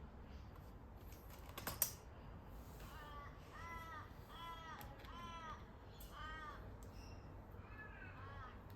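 A crow cawing about six times in a steady series, each caw short and arched in pitch. Before the caws there is one sharp click, the loudest sound, of the kind made when the keyboard's plastic parts are handled.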